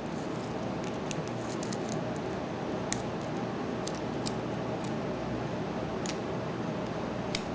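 A few faint, light metallic clicks and ticks from a thin steel tool working the springs and core of a padlock cylinder, over a steady background hiss.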